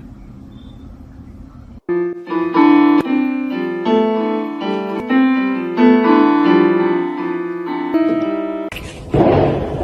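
Piano playing a melody of separate notes, starting about two seconds in after a low, quiet background. Near the end a loud, rough noise abruptly takes over.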